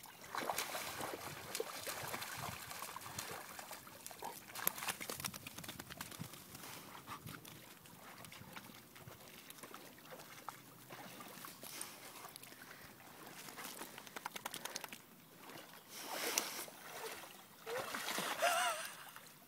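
Shallow pond water sloshing and splashing as people and dogs wade through it and hands stir the water, in uneven small splashes.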